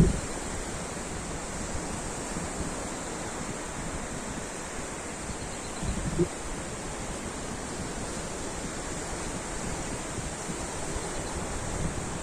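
Ocean surf washing steadily, with two brief low thumps, one right at the start and one about six seconds in.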